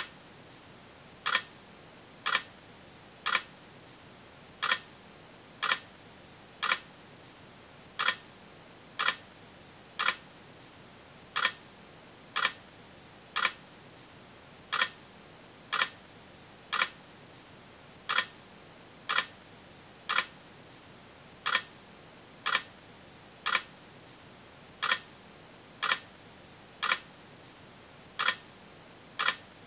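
Sharp, regular ticks about once a second, falling in groups of three with a slightly longer pause between groups, over a faint steady hiss.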